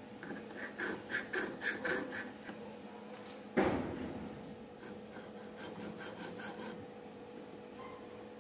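Steel vernier caliper handled against a steel plate on a metal workbench: a run of light metallic clicks and scrapes, one sharp knock a little past three and a half seconds in, then fainter ticks. A faint steady hum runs underneath.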